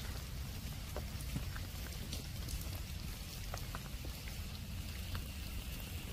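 Heavy rain falling, with scattered drops ticking close by over a steady low rumble.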